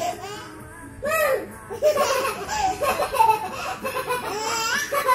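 A baby laughing, in repeated bursts.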